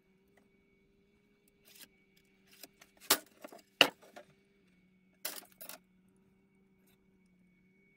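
Tools and wood handled on a workbench: a few knocks and metallic clinks, the two loudest close together about three to four seconds in as a long steel rule is set down, then two softer knocks as the wooden fretboard and neck blank are moved.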